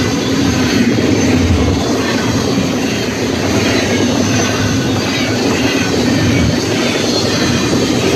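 Union Pacific freight train of double-stack container cars passing at speed over a grade crossing: a loud, steady rush and rumble of wheels on rail.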